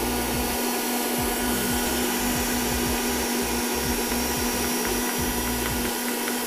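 Electric stand mixer running at speed, its whisk beating eggs and sugar in a steel bowl: a steady motor hum.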